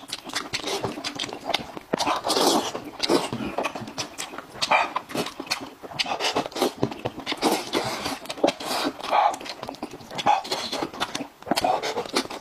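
Close-miked eating: wet chewing, slurping and lip-smacking, full of quick sharp clicks.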